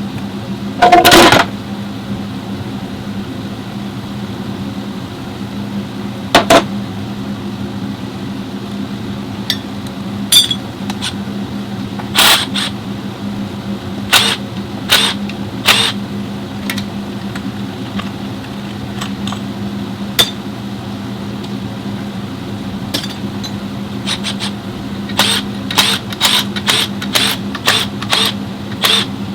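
Nissan Cube's transmission giving a steady hum at one pitch, the kind of running noise the owner brought it in for, with scattered sharp clicks over it, a loud one about a second in and several close together near the end.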